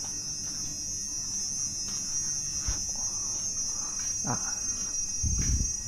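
Steady high-pitched drone of insects buzzing in the trees, holding one pitch throughout. Near the end a brief low rumble rises above it.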